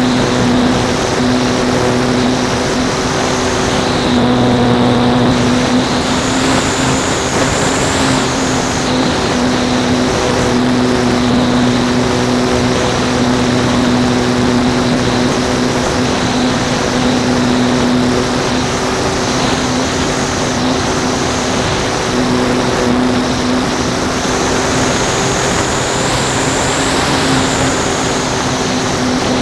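Calypso RC airplane's motor and propeller running steadily in flight, heard from the onboard camera with a heavy rush of wind over the microphone. A high whine rises and falls a couple of times as the throttle changes.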